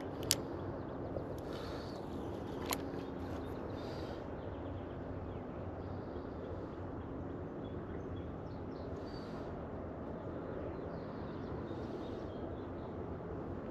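A spinning reel clicks sharply twice in the first three seconds as a cast is made, then quiet outdoor ambience with a steady low hum.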